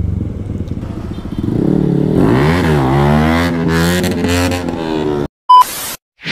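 Motorcycle engine revving and accelerating, its pitch dipping at a gear change and then climbing steadily. It cuts off abruptly about five seconds in, followed by a short, very loud electronic burst with a beep.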